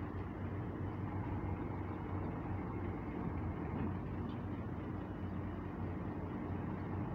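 Diesel engine of a UD boom truck running steadily, a low even hum, powering the crane's hydraulics during a lift.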